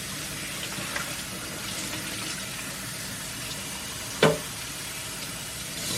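Water running steadily from a kitchen tap into the sink, with a single sharp knock about four seconds in.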